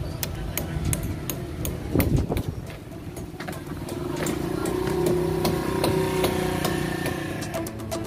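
An engine running with a steady low hum that swells and fades through the middle, under scattered clicks and a knock about two seconds in.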